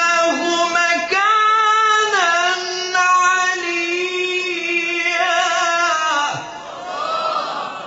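Qur'anic recitation in maqam Saba: a male reciter sings long, held melismatic notes in a high register, with wavering ornaments and glides between pitches. The line ends about six seconds in, and fainter voices follow.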